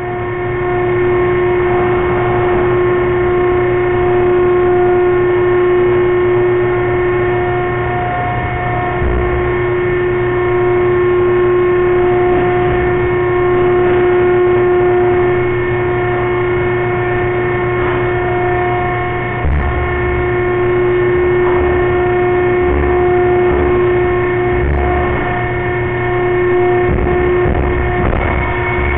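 Steady, loud drone of slaughter-plant machinery: a constant low hum with several held tones over it. Short low rumbles come and go, about nine seconds in and again from about twenty seconds on.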